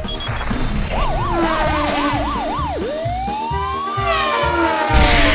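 Emergency-vehicle siren sound effect: a fast up-and-down yelp starting about a second in, switching to a slow wail that rises and then falls. Background music with a steady beat plays underneath.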